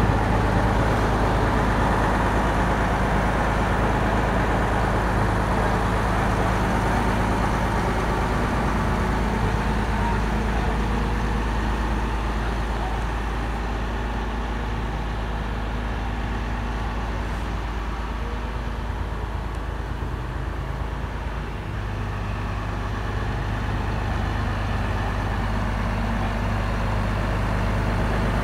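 Leyland O.680 Power Plus six-cylinder diesel engine idling steadily, heard from outside the bus. Its note grows fainter for a stretch in the middle, then louder again near the end.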